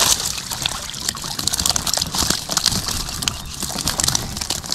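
Water trickling and sloshing, broken by many small irregular splashes and drips.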